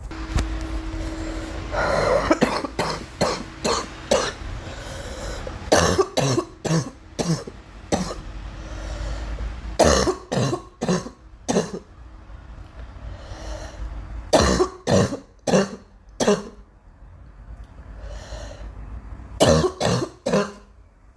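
A girl coughing in repeated fits: about five bouts of several sharp coughs in quick succession, with short pauses between them.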